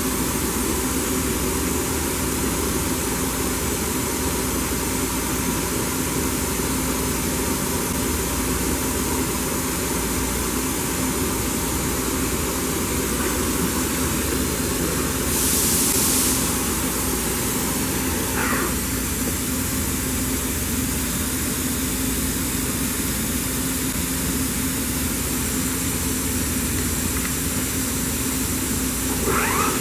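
Toyoda FV1165 CNC vertical machining center running: a steady mechanical hum holding a couple of constant tones, with a brief hiss about halfway through.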